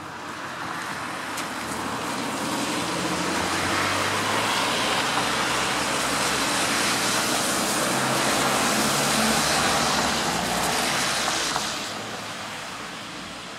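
A road vehicle passing close by: a broad rushing noise with a low engine rumble that swells over about four seconds, holds, and falls away sharply about twelve seconds in.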